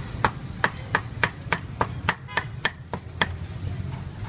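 Cleaver chopping meat on a wooden chopping block: about a dozen sharp, even strikes, roughly three a second, stopping a little past three seconds in.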